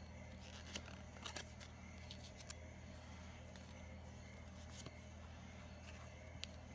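Pokémon trading cards being handled and flipped off a stack one at a time, giving a handful of short, light card clicks and slides, over a steady low background hum.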